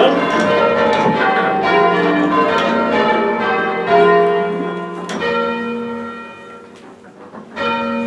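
A heavy ring of six church bells rung full circle, strikes coming quickly and overlapping. After about five seconds they thin out to a few single strikes that ring on and fade.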